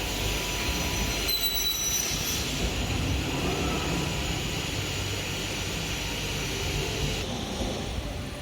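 CNC panel saw running: steady machine noise, with a high whine about a second in and a sudden change in tone near the end.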